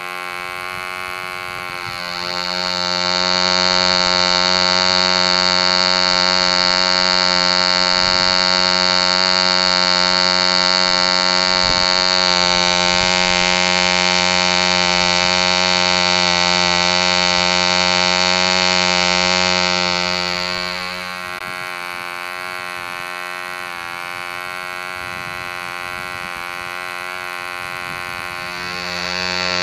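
E.D. Comp Special, a circa-1948 long-stroke sideport model diesel engine, running steadily at a constant speed while it swings a 9x6 propeller. It is louder and closer from a few seconds in until about two-thirds of the way through.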